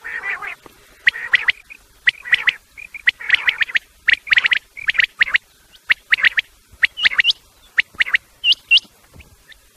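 Common quail calls, of the kind played as a hunting lure: clusters of two to four quick, sharp notes repeated about once a second, turning to higher, upward-flicking notes near the end.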